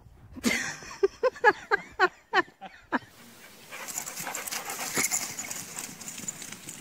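A dog yelping excitedly: a quick run of about eight short, sharp, falling yelps over two and a half seconds. After that comes a steady rushing hiss.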